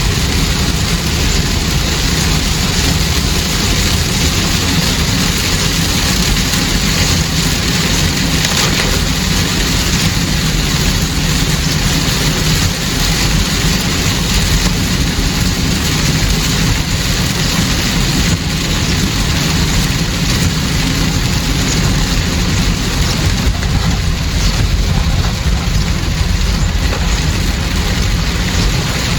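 Steady rain on a moving car, with engine and tyre noise, heard from inside the car.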